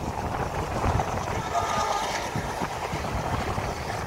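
Passenger train running, heard from inside a coach at an open window: a steady running noise with irregular low thuds.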